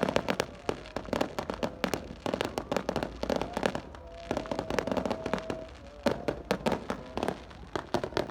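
Rapid strings of firecracker and firework pops and crackles going off in clusters, with a brief lull about four seconds in. A thin steady whistle-like tone comes and goes among the pops.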